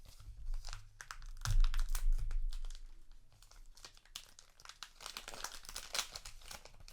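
Foil trading-card booster wrapper crinkling and tearing as it is opened by hand, with dull handling bumps about a second and a half in.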